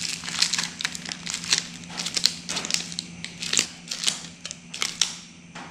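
Thin plastic crinkling and crackling in quick, irregular bursts as hands handle a plastic wrapping and a rubber band.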